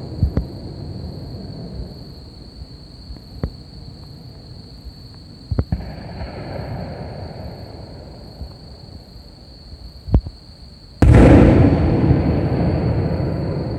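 Aerial fireworks going off: a few sharp, scattered bangs, then a much louder boom about 11 seconds in that rumbles and echoes away.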